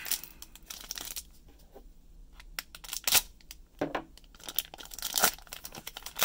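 Plastic wrapper of a trading-card cello pack crinkling and tearing as fingers pick at the sealed end and pull it open. The crackles are scattered, with a sharp loud rip about three seconds in and denser crinkling near the end.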